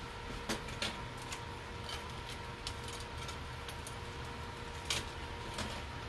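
Scattered light clicks and taps of small items being handled, a handful of them at irregular intervals, over a faint steady hum.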